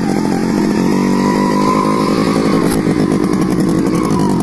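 Small motorcycle engine running close by, steady and loud, as the bike rides off along a dirt track.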